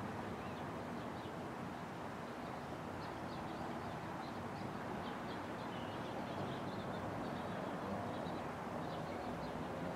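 Faint chirping of small birds, many short high chirps scattered throughout, over a steady low background hiss.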